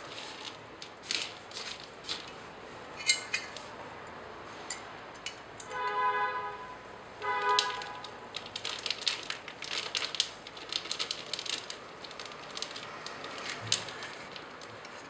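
Metal clicks and rattles from a stainless steel rotary cheese grater being handled, its drum fitted and its crank turned. Two short, steady horn-like honks come about six and seven and a half seconds in.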